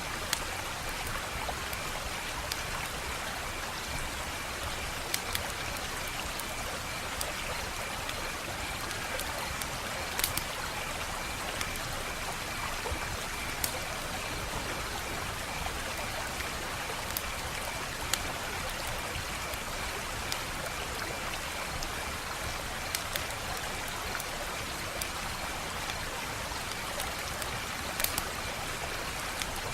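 Wood fire crackling: a steady hiss with sharp pops and snaps scattered every second or two.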